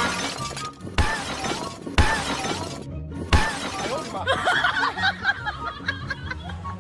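Three sharp crashes like breaking glass, each with a short hissing tail, about a second apart, over background music.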